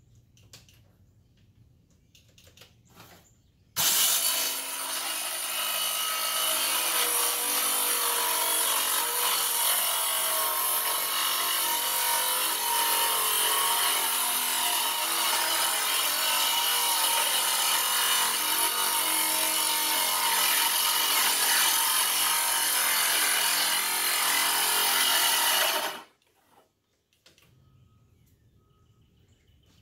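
Bauer 20-volt Hypermax 6-1/2-inch cordless circular saw with a 24-tooth Diablo framing blade, starting up about four seconds in and cutting through wood steadily for a little over twenty seconds. The sound then stops abruptly.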